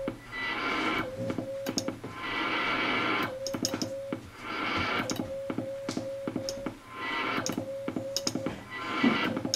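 Morse code (CW) being sent on a telegraph key and heard through a National NC-183D shortwave receiver. A steady middle-pitched note is keyed on and off in dots and dashes, with sharp clicks from the key and shortwave band hiss that swells and fades.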